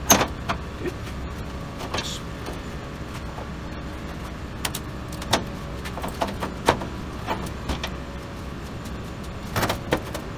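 Scattered sharp metal clanks and taps as steel door-frame pieces are handled and set in place on a metal workbench, a dozen or so separate knocks, clustered at the start and again near the end, over a steady low hum.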